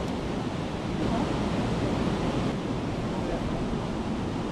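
Water rushing steadily over a river weir, a continuous even roar, with some wind on the microphone.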